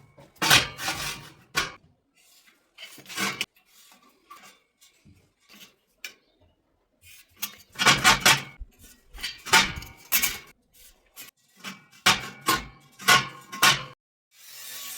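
Hard metal objects clanking and knocking together in irregular clusters of sharp strikes, some with a brief metallic ring.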